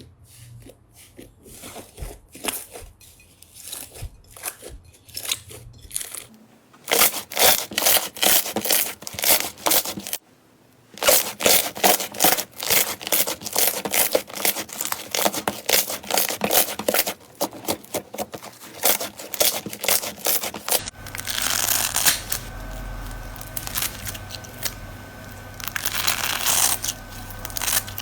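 Slime being pressed and stretched by hand, giving quick runs of small crackling clicks that turn dense and loud after about seven seconds. Near the end the sound changes abruptly to a hissier crackle.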